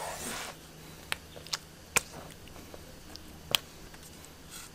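Cleaver slicing pig liver on a wooden chopping board: four sharp knocks as the blade meets the board.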